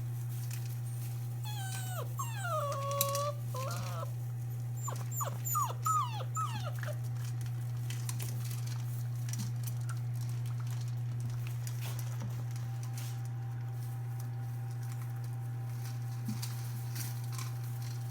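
Five-week-old Labrador puppy whining: long falling whines about two to three seconds in, then a run of short rising and falling whines, over a steady low hum.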